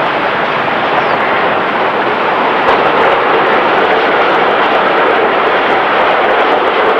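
Steady street noise of city traffic, with a W-class tram moving across the intersection.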